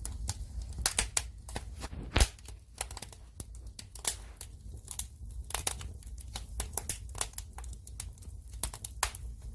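Firewood fire crackling: dense, irregular snaps and pops, one much louder pop about two seconds in, over a low steady rumble.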